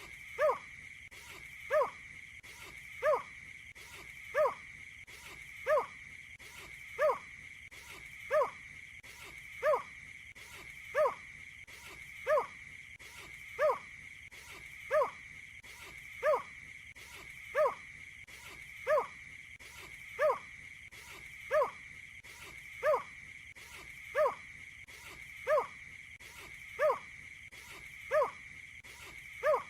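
A marsh bird's call repeated as a series of short, low hooting notes, one about every 1.3 seconds and evenly spaced, from a call recording of watercock, painted-snipe and similar birds. A steady high-pitched drone runs underneath.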